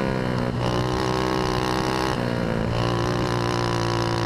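110 cc kart engine heard from onboard, running hard, with its pitch dropping and climbing back twice as the throttle is eased and reopened through the turns.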